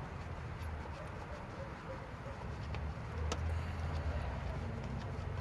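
A few sharp metallic clicks from a wrench working the water pump pulley bolts, over a steady low rumble.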